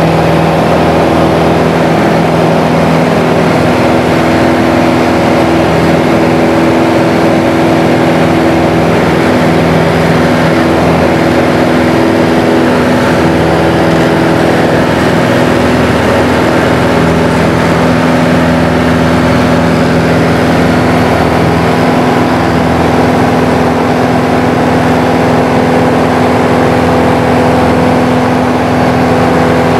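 Single-engine light aircraft's piston engine and propeller running steadily, loud inside the cabin in flight. The pitch of the drone shifts slightly around the middle.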